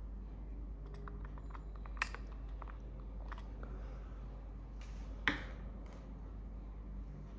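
Small plastic clicks and handling noises from a Kodak PIXPRO WPZ2 camera's battery compartment being worked by hand: a run of light ticks, then two sharper clicks about three seconds apart, with a little rustling between them.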